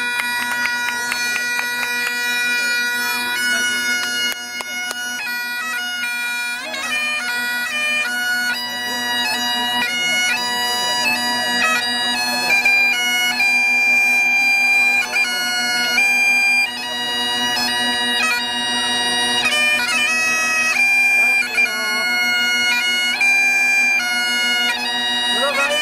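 Scottish Highland bagpipes playing a tune: the melody moves from note to note over one steady, unbroken drone.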